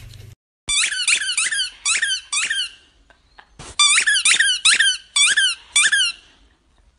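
A squeaky tennis-ball toy squeezed over and over in a boxer dog's jaws as it chews. The squeaks come quickly, about three or four a second, and each one falls in pitch. They come in two runs with a short pause about three seconds in.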